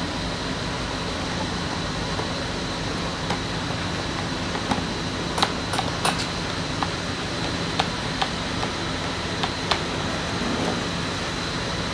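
Steady background hum with about a dozen light clicks and taps in the middle, from small parts and hand tools being handled during a heated-grip installation.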